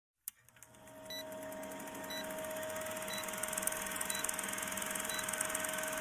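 Old-film countdown leader sound effect: a fast, even projector-like rattle over a steady hum, with a short high beep once a second, five beeps in all, starting about a second in.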